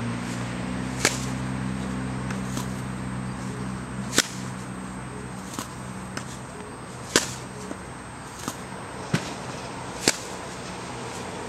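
Tennis balls being struck by a racket, sharp cracks about every three seconds, with softer ball bounces on the hard court between them. A low hum runs under the first half and fades out.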